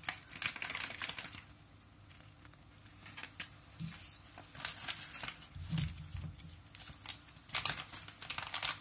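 Plastic spice sachets crinkling as they are squeezed, shaken out and handled, in irregular spells of crackles with quieter stretches between.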